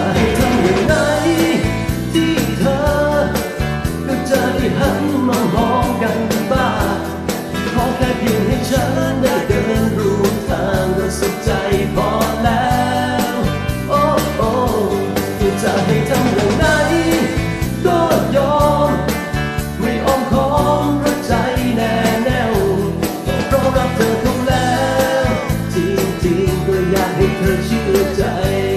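A song playing: a singing voice over guitar backing with a steady beat.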